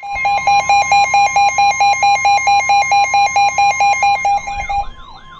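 Weather-radio alert tones: a steady high warning tone near 1 kHz, the NOAA Weather Radio alarm tone that precedes a warning, under a louder rapid beeping of about five beeps a second. The beeping stops near the end, where a warbling siren-like sweep takes over.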